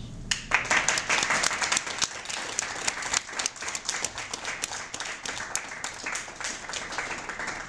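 Audience applauding, the clapping starting abruptly a moment in.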